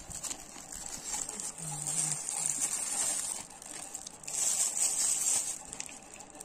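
Plastic packaging crinkling as it is handled: a plastic courier mailer is pulled open and the gloves' clear plastic wrap is squeezed. The rustling comes in two spells.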